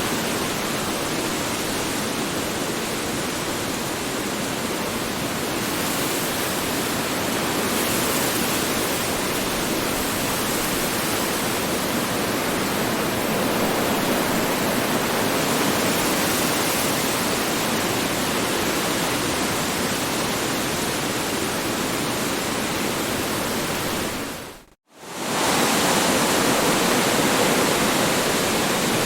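Strong wind blowing, a steady rushing noise that swells a little now and then. Near the end it fades out to silence for a moment and comes straight back.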